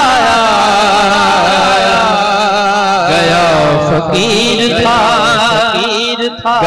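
A man singing a naat in a long, ornamented line with no clear words. His voice slides and wavers, over a held low backing note that drops about three seconds in and rises again near five seconds.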